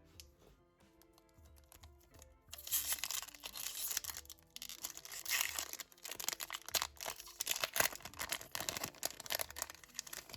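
A foil Pokémon booster pack being torn open and its wrapper crinkled, a loud crackling that starts about two and a half seconds in and goes on with a short pause. Background music plays underneath.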